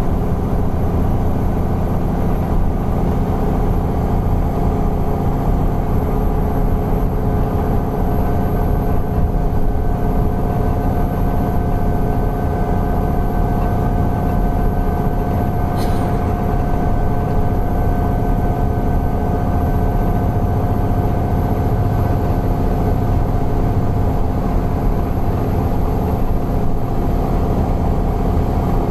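Alexander Dennis Enviro 400 double-decker bus running steadily: a low engine drone with steady whistling tones held over it, the wheeze this bus is known for. A brief click about halfway through.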